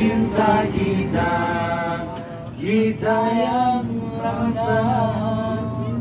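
Vocal music playing: a singing voice holding long, wavering notes in phrases, with short breaks between them.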